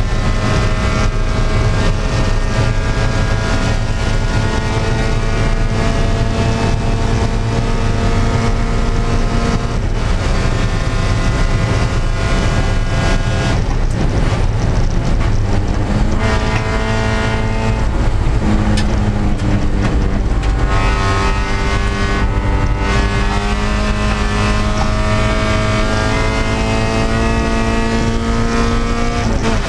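Spec Miata (Mazda MX-5) four-cylinder engine at racing speed, heard from inside the stripped cockpit with road and wind noise. Its pitch climbs slowly for about ten seconds, then drops and climbs again several times as the driver lifts, brakes and gets back on the throttle through corners.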